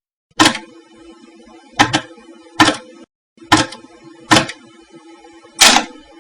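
A series of about seven sharp knocks, irregularly spaced, with a steady hum between them that drops out briefly near the middle.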